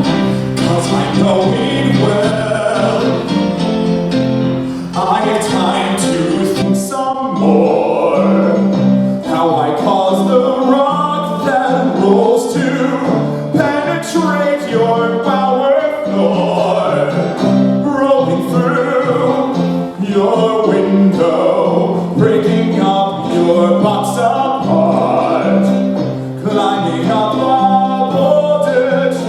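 Music from a stage musical: singing over instrumental accompaniment, with sustained low chords beneath the voices.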